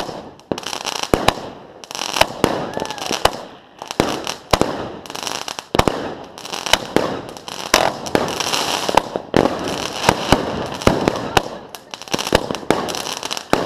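Fireworks going off: a rapid, irregular run of sharp bangs, several a second, with hissing and crackling between them.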